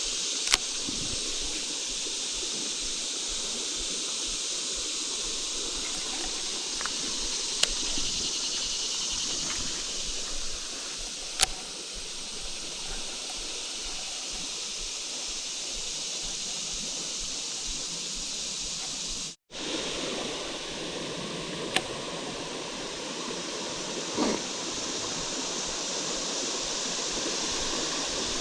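Small creek flowing: a steady rush of running water, broken by a few sharp clicks. The sound cuts out for an instant about two-thirds of the way through.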